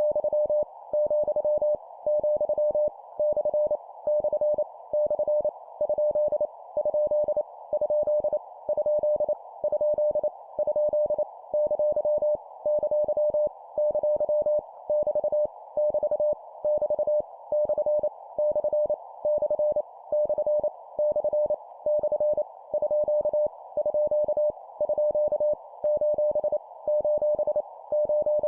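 Morse code (CW) sent at 25 words per minute as a single steady-pitched beep keyed rapidly on and off, drilling random punctuation characters, each sent three times. A band of hiss, like a receiver's filtered noise, runs on under the tone and through its gaps.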